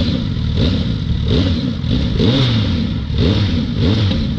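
Suzuki Hayabusa inline-four engine, fitted with its stock exhaust, revved from idle in about six quick throttle blips, each rising and falling.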